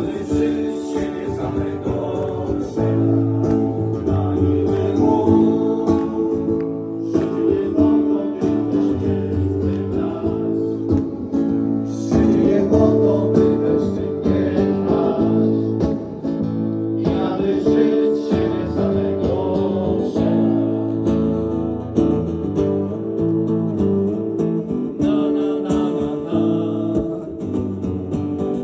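Live music with strummed acoustic guitar and band accompaniment, playing without words.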